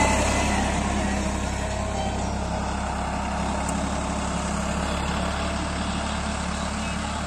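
Farmtrac 45 tractor's three-cylinder diesel engine running steadily under load as it pulls a land leveler across loose soil. It grows slowly fainter as the tractor moves away.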